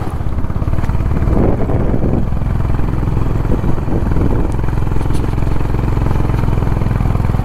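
Motorcycle engine running steadily at cruising speed, heard from the rider's own bike, with a brief louder rush about a second and a half in.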